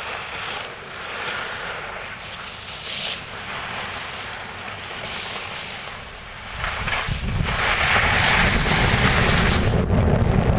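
Wind rushing over the microphone of a camera carried by a moving skier, with the hiss of skis sliding on snow. The low wind rumble gets much louder about seven seconds in.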